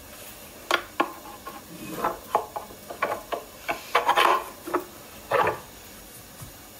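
Wooden knocks, taps and short scrapes as a block of ebony is set on and shifted about on a ukulele body in its mold.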